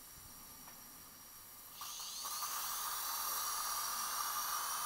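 Dental implant surgical handpiece spinning a 2 mm twist drill as it prepares the implant hole in the jaw. It starts about two seconds in, rises briefly in pitch as it spins up, then runs with a steady high-pitched whine.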